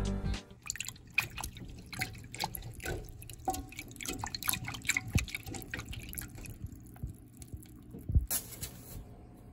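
Dark grapes being washed by hand in water in a stainless-steel colander: irregular splashing and dripping as fingers rub the fruit. A louder knock comes a little past 8 seconds.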